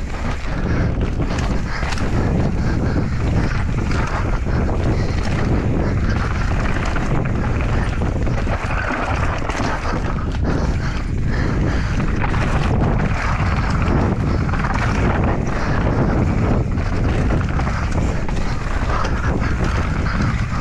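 Mountain bike descending a trail at speed: wind rushing over the camera microphone, with the tyres rumbling over the ground and frequent knocks and clatter from the bike over bumps.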